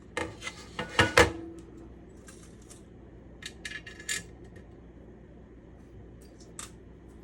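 Small metal hardware clinking against a stainless steel pan lid as a handle is fitted: a quick cluster of sharp clinks in the first second and a half, the loudest with a brief metallic ring, then a few lighter clicks and taps later on.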